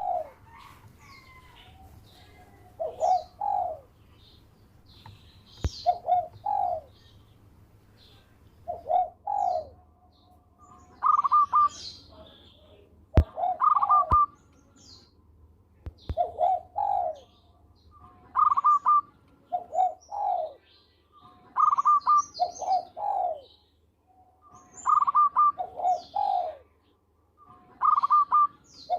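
Zebra dove (perkutut) singing its cooing song, a phrase every two to three seconds, each a few clipped higher notes followed by lower rolling coos. Faint chirps of small birds and a few sharp clicks sound behind it.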